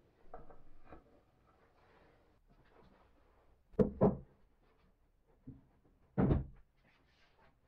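Heavy plywood box being set down onto a wooden tool cart: a double wooden thud just before halfway, then another thud about six seconds in, with a few faint knocks before.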